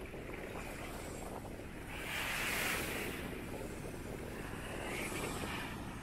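Andaman Sea surf washing up the beach, with one louder breaking wash about two seconds in and a smaller one near the end, over wind rumbling on the microphone.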